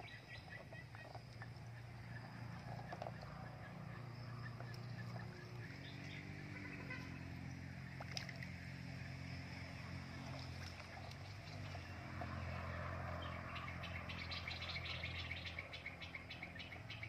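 Water sloshing and splashing around a person wading through a pond, heaviest near the end. Under it runs a steady low hum that shifts pitch a couple of times.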